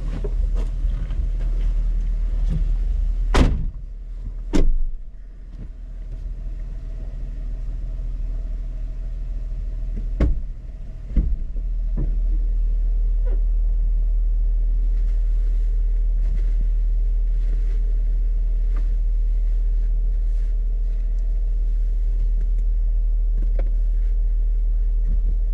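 Jeep engine idling with a steady low rumble, broken by a few sharp knocks and thuds in the first dozen seconds. About twelve seconds in, the idle settles into an even, slightly louder hum.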